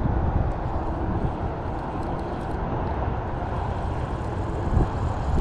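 Wind buffeting the microphone, a steady low rumble, with a few faint ticks about two seconds in.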